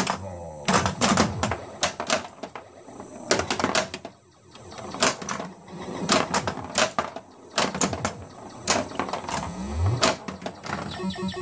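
Bally Eight Ball Deluxe pinball machine in play: a rapid run of mechanical clicks and clacks from the ball, switches and solenoids on the playfield. Near the end the game's electronic sound effects come in, a short rising tone and then a quick repeating beep pattern.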